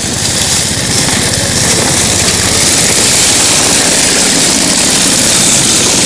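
A small motorized snow tug (motosobaka) running steadily while it tows sleds over snow, with a loud steady hiss above the low engine hum.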